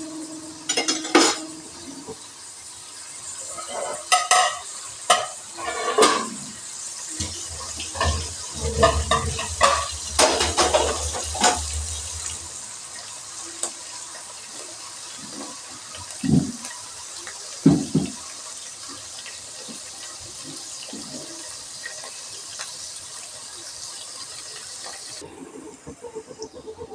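Sliced onions sizzling in hot oil in a metal pot, with a metal spoon scraping and knocking against the pot as they are stirred. The sizzle cuts off suddenly shortly before the end.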